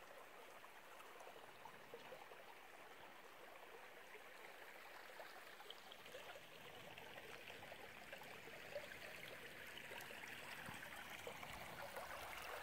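A shallow, rocky stream trickling faintly over stones, growing a little louder near the end.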